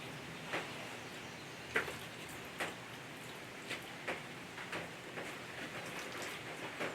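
Lit charcoal with a chunk of kiawe wood crackling, irregular sharp pops about once or twice a second over a faint hiss.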